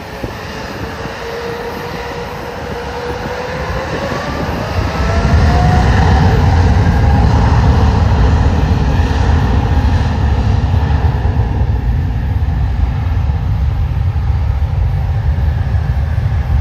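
A widebody twin-engine airliner's turbofan engines spooling up to takeoff power. A whine rises in pitch over the first several seconds, then about five seconds in a loud, steady low roar takes over as the jet rolls down the runway.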